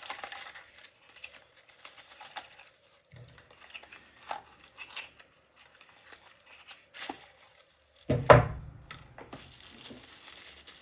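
Packaging rustling and crinkling with scattered small clicks as boxed lathe tool post holders are handled, and one heavy thud about eight seconds in.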